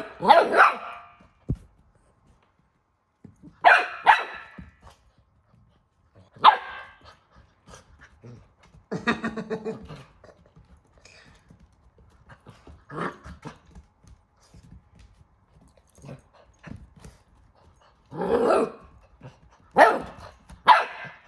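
Golden retriever puppy barking in short bursts every few seconds, several close together near the end.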